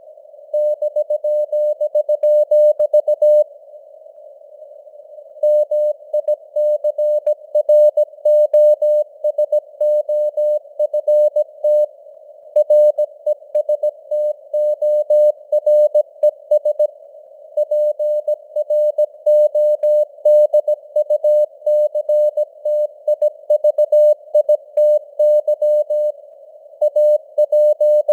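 Computer-generated Morse code (CW) sent at 17 words per minute: a single steady beep keyed on and off in dots and dashes, over a soft hiss of simulated radio noise. The sending pauses for about two seconds a few seconds in, with shorter breaks between words later.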